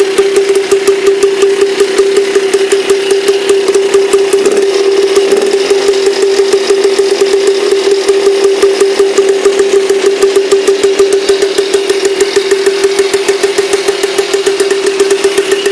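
Air-cooled single-cylinder engine of a two-wheel walking tractor running steadily at a fast idle, with a brief change in pitch about four to five seconds in.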